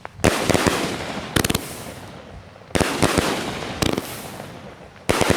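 A Sky Slam consumer fireworks cake firing in sequence: about six sharp, heavy bangs, each fading away before the next. Near the middle and again near the end, two bangs come close together.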